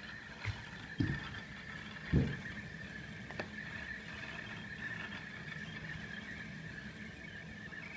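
Low thumps of a handheld camera being moved and handled: a small one, then two strong ones about a second and two seconds in. A sharp click follows, all over a steady high whine and low hum.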